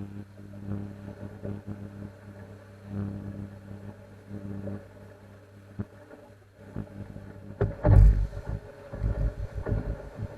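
Fishing boat under way at speed, its engine running with a steady hum. About seven and a half seconds in, loud irregular low thumps and rushing noise break in, from the hull meeting the swell and wind buffeting the microphone.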